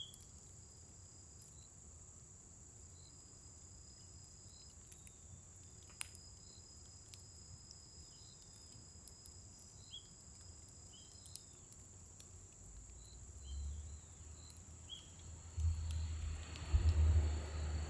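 Scrap-wood fire giving occasional sharp pops and crackles over a steady high insect trill with small chirps. A low rumble builds in the last few seconds.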